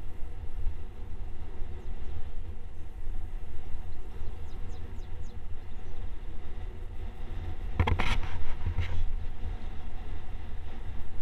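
Wind rumbling and buffeting on the microphone of a camera travelling down a road, with a short burst of clattering knocks about eight seconds in.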